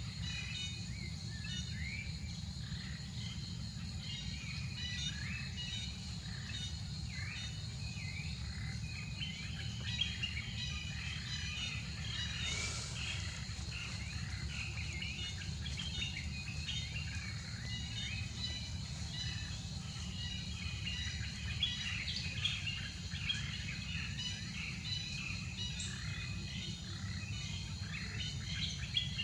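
Forest ambience: many short bird chirps throughout, over a steady low rumble and a thin, steady high insect drone.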